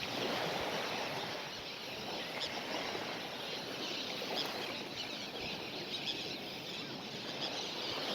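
Steady outdoor ambience: an even rush of background noise, with a couple of faint short chirps about midway through.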